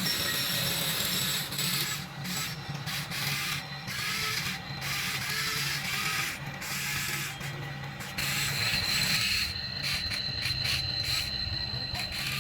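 Small motor and gears whirring and grinding, starting and stopping over and over, with a steady low hum underneath and a thin high whine joining after about eight seconds.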